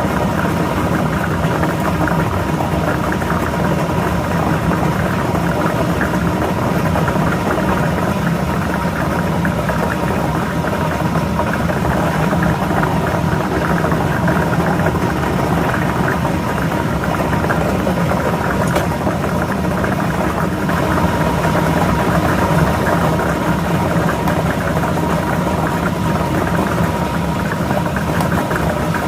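Lotto ball drawing machine running steadily, its motor humming while the balls rattle and clatter inside without a break.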